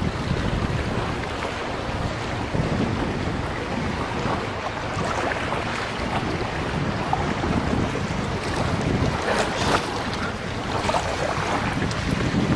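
Wind buffeting the microphone in a steady low rumble, over water lapping around the kayak, with a few sharper splashes about three quarters of the way through.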